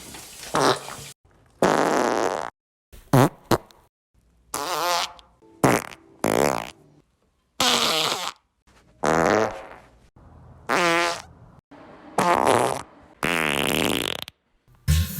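A string of about a dozen separate fart sounds, each lasting from a fraction of a second to just over a second, cut apart by silences. Several buzz with a pitch that wobbles up and down, and a few are short pops.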